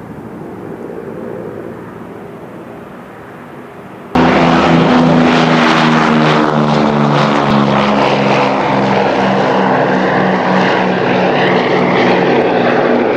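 Propeller aircraft piston engines droning, moderate at first, then suddenly much louder about four seconds in, with an engine note that pulses and shifts in pitch.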